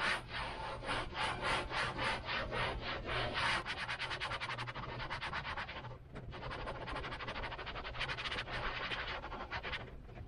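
A cloth rag rubbed back and forth on an RV roof, wiping it down with acetone to clean off dirt and grease before an antenna is stuck on. Rapid scrubbing strokes, about three to five a second, with a brief pause about six seconds in.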